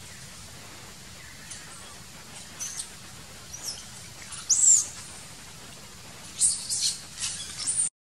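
Short, very high-pitched animal chirps and squeaks over a steady outdoor hiss. They are scattered at first, the loudest is an arching call about halfway through, and a quick run of them comes near the end before the sound cuts off abruptly.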